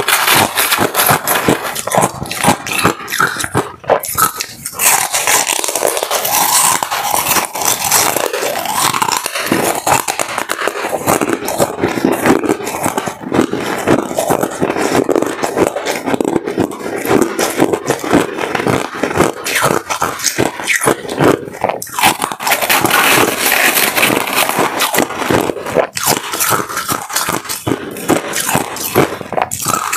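Close, loud crunching of frost-covered ice: frosty ice chunks being bitten and chewed, and crushed ice crackling and scraping as fingers dig through the tray, in a dense run of crisp crackles.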